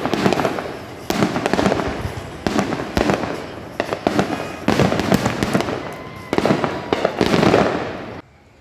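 Aerial fireworks show: a string of loud bangs about once a second, each trailing off as it fades, until the sound drops away suddenly near the end.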